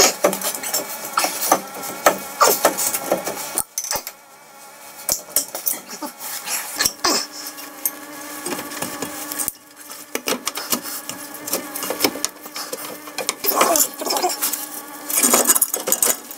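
Irregular metallic clinks, knocks and scrapes as a car's front driveshaft is handled and its splined inner end is worked into the gearbox.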